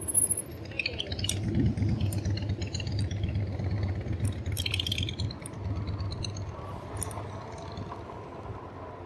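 Ride noise on a 2018 RadMini electric bike at about 10 mph: a steady low wind rumble on the microphone, with rattling and clinking from the bike and its mounts. The rattling is busiest in the first half and eases off near the end.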